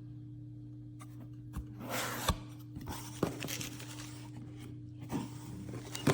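Close handling noise: rubbing and scraping with a few sharp clicks, over a steady low hum, cutting off suddenly at the end.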